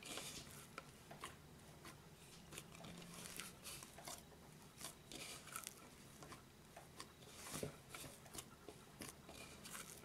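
Faint, irregular soft squishes, rustles and light taps of hands kneading stiff yeast dough in a bowl.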